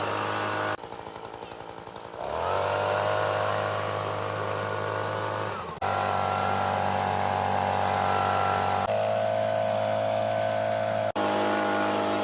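Gas leaf blower engine running. It drops to a low, pulsing idle about a second in, then revs back up with a rising pitch and holds steady, broken twice by abrupt short cuts.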